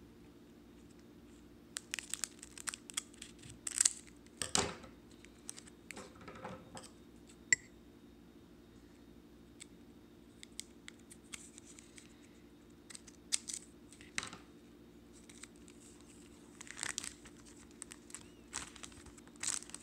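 Scissors cutting open the shiny foil wrapper of a Pokémon booster pack: crinkling and tearing in scattered bursts with sharp snips, the loudest about four seconds in. A faint steady low hum runs underneath.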